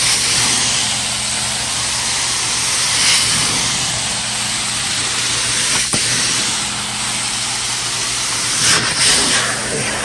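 Truck-mounted carpet extractor's cleaning wand working commercial carpet: a steady rush of vacuum suction and hissing hot-water spray that is steaming, over a steady low hum. A single click about six seconds in.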